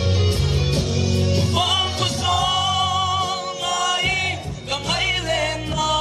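Live band music through a PA system with a male singer, his voice coming in about a second and a half in over the steady backing.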